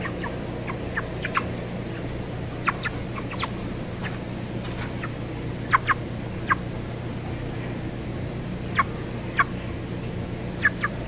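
Caged chickens giving short, sharp calls, a dozen or so at irregular intervals, over a steady low hum.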